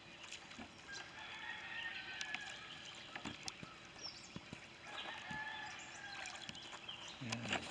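Faint bird calls, a few drawn-out calls about a second long, over a low outdoor background with scattered light ticks.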